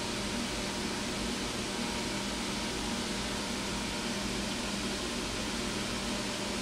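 Steady background hum and hiss, a fan-like room noise with no distinct events.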